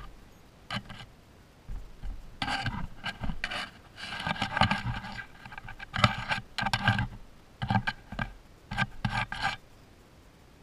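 Baby striped skunk brushing and scraping against the camera right at the microphone: irregular bursts of scratchy rubbing, densest in the middle and dying away near the end.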